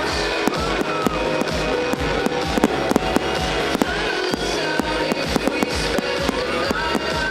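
Fireworks going off in quick succession, with frequent sharp bangs and crackles over low booms, and music playing alongside.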